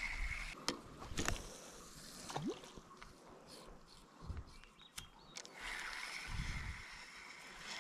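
Faint running water of a small stream, with a few sharp clicks and soft knocks scattered through it.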